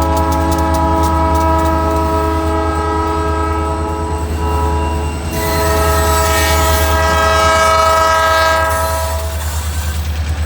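Diesel freight locomotive's multi-chime air horn sounding two long blasts, the second starting about halfway through, over a steady low rumble of the moving train.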